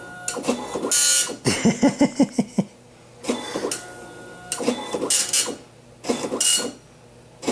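Apple ImageWriter II dot matrix printer printing a colour graphic: a series of rasping passes of the print head, each under about a second, separated by short pauses, with a longer pause near the end.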